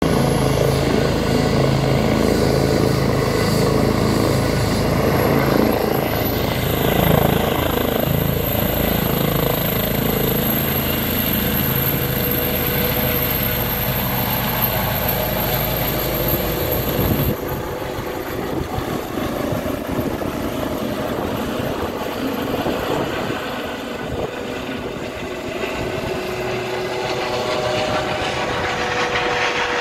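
Airbus H135 air ambulance helicopter's turbines whining and rotor blades beating as it lifts off and climbs away. The heavy low rotor sound drops away a little past halfway, and it sounds lighter after that.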